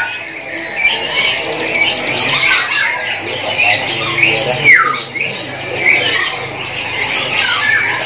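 AFS canary in full song, a dense run of rapid chirps and trills with a falling whistle about halfway through, among other caged birds calling.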